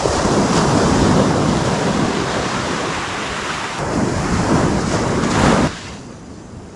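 Ocean surf breaking and washing up the beach, with wind rumbling on the microphone. The loud rush stops abruptly about a second before the end, leaving quieter surf.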